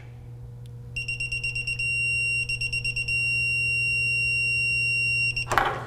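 The electronic buzzer of a Hilmor digital torque wrench. It gives a quick run of beeps, then a short steady tone, more quick beeps, and then a long steady tone that cuts off after about two seconds. It signals that the wrench has reached its set torque of 8 foot-pounds while tightening a service valve cap.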